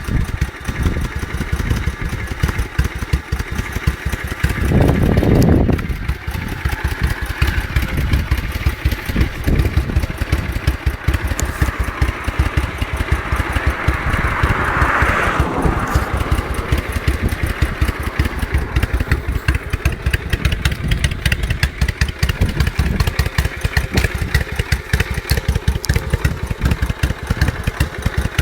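Suzuki Intruder 800 V-twin with straight-through pipes idling with a loud, even exhaust beat. The throttle is blipped once about five seconds in, making a short louder rev.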